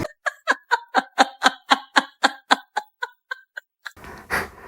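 Comedic laughing sound effect: a quick run of short snickering 'heh' syllables, about four a second, fading out near the end. A dog's panting comes in just before the end.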